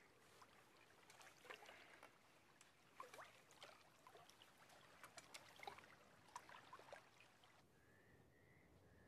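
Faint water sloshing, with small splashes and drips, as men wade chest-deep through water. Near the end the splashing stops and a faint wavering high whistle is heard.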